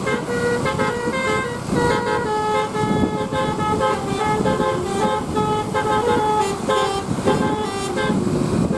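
Bus telolet horn of the Basuri type playing a quick tune of short notes that step up and down in pitch, over the rumble of engine and road noise.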